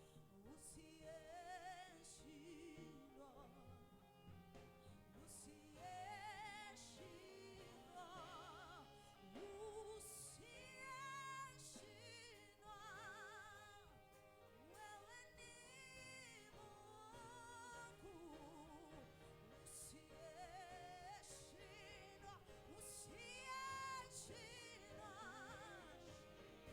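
Quiet sung worship music: a singing voice with wide, wavering vibrato over sustained held chords.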